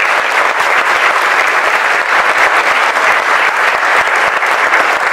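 Audience applauding, a steady, dense clapping that holds at one level.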